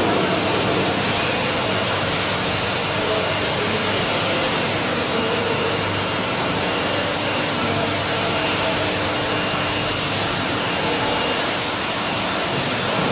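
Asymmetric three-roll plate bending machine running: a steady mechanical hiss and hum with a few faint steady tones.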